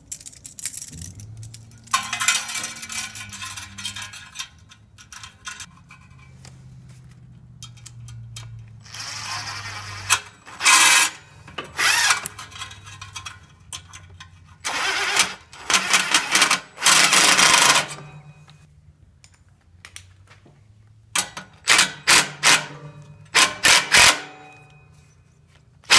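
Cordless drill running in a series of bursts as it drives the screws of hose clamps tight around a mower muffler's heat shield, clamping the shield down so it stops rattling. Several runs of a second or more, then a quick string of short pulses near the end as the clamps are snugged down.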